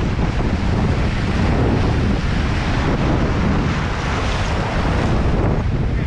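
Wind buffeting the microphone with a constant low rumble, over ocean waves washing against a rocky shore.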